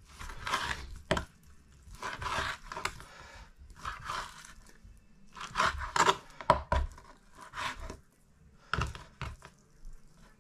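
Kitchen knife slicing raw pork into chunks on a wooden chopping board: irregular slicing and scraping strokes, with a few sharp knocks of the blade on the board.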